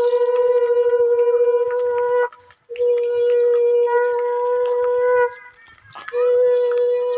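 Conch shell (shankha) blown in long, steady, single-pitched blasts. One blast ends about two seconds in, a second lasts about two and a half seconds, and a third starts near the end, with short breaks for breath between them.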